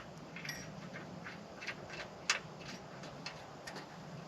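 Faint, irregular metallic clicks and taps, with one sharper click about two seconds in: washers and bolts being handled and fitted at the mounting of an electric trailer tongue jack.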